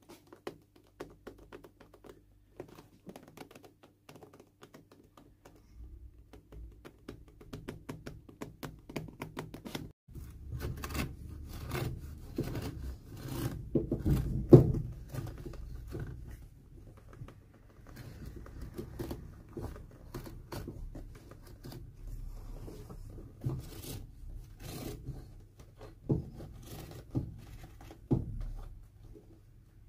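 A small blade cutting the stitches between a leather shoe's welt and its old sole: a run of light clicks and snips, then the scrape and rustle of the blade working along the sole edge, with one sharp knock about halfway through.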